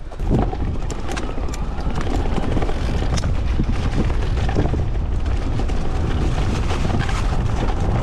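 Riding noise of a mountain bike rolling fast down a leaf-covered dirt trail: steady wind rush on the bike-mounted camera's microphone with tyre rumble and scattered clicks and rattles from the bike.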